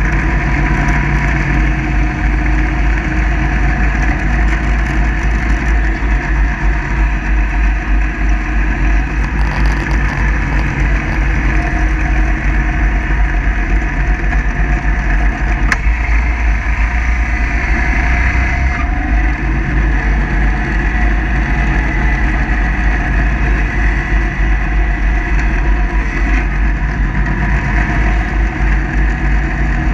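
Kubota 54-inch zero-turn mower's engine running steadily under load while mowing, with a constant low drone.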